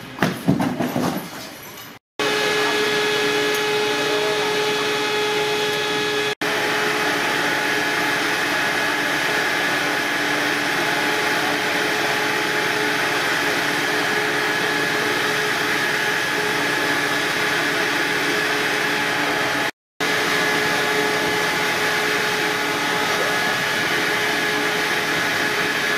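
Fire service smoke-ventilation fan running steadily: a loud, even drone with a fixed multi-tone hum. It is preceded, in the first two seconds, by a few loud irregular knocks.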